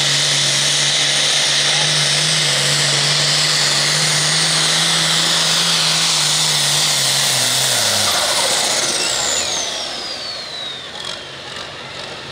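Ford 8600 Pro Farm pulling tractor's turbocharged diesel engine running flat out under load while pulling the sled, then shut off the throttle about eight seconds in as the pull ends. The engine note drops away and the turbocharger's high whine falls in pitch as it spools down.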